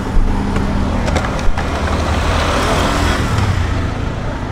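A motor vehicle engine running with a steady low hum amid road traffic noise, which swells about halfway through before the hum fades near the end. A few light clicks come about a second in.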